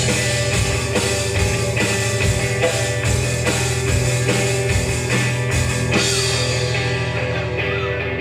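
Live rock band playing an instrumental passage with drum kit, bass and distorted electric guitars. About six seconds in, the drums and cymbals fall away and the guitars ring on.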